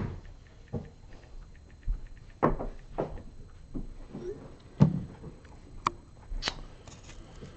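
Scattered taps, knocks and rustles of trading cards and packs being handled on a tabletop, with about seven sharper knocks spread irregularly through it.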